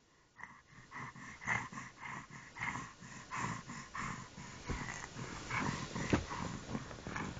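A small child making a string of short, breathy, animal-like noises in quick succession.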